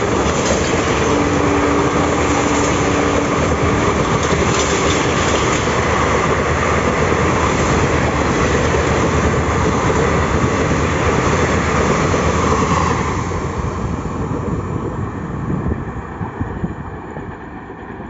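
Passenger coaches of an express train running through a station at speed: a loud, continuous rumble and clatter of wheels on rail. About two-thirds of the way through, the last coach goes by and the sound fades as the train recedes.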